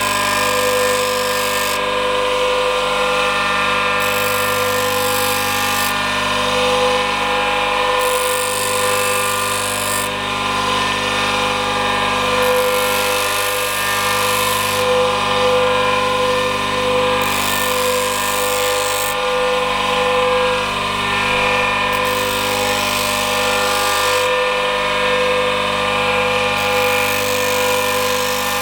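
Electric saw-chain grinder (Elko B150) running with a steady motor whine, its grinding wheel repeatedly brought down onto the chain's depth gauges: each contact adds a hiss of about two seconds, roughly every four seconds.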